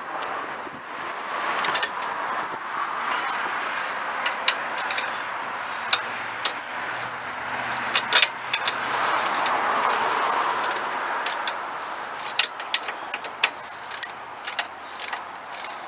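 Sharp metallic clinks and taps, a dozen or so scattered irregularly, as a bolt is worked out of the steel plow mounting bracket of a Snapper LT11 garden tractor. Under them is a steady rushing noise that swells about halfway through.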